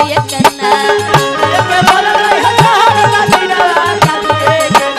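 Bhojpuri folk-song accompaniment with no singing: a hand drum keeps a steady beat under a wavering, ornamented melodic instrument line.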